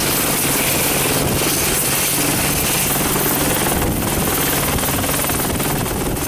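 AH-64D Apache's twin turboshaft engines running on the ground with the main rotor turning: a steady helicopter drone with a thin high whine, easing slightly in level near the end.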